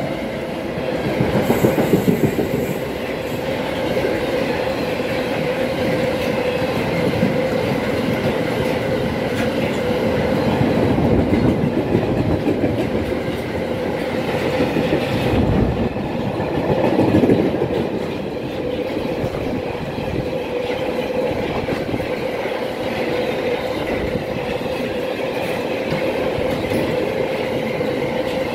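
A freight train of empty double-deck car-carrier wagons rolls past at speed, a continuous rumble with the clickety-clack of wheels over the rail joints. A steady whining tone runs through it, and it swells louder about two seconds in and again past the middle.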